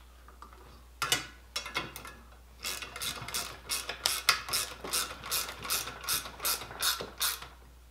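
Hand ratchet clicking as a nut is run down on a bolt: a few single clicks, then an even run of about three clicks a second that stops near the end.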